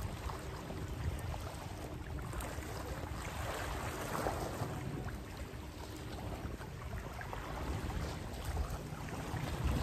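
Small sea waves lapping and washing against the rocks at the water's edge, with a low rumble of wind on the microphone.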